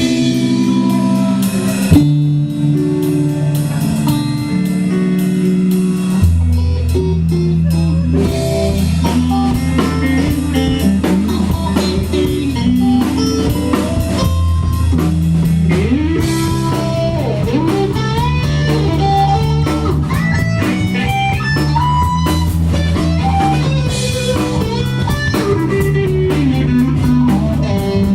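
Live rock band playing: electric guitar chords over drum kit, with the bass guitar coming in heavier about six seconds in, then a lead line of bending notes over the groove.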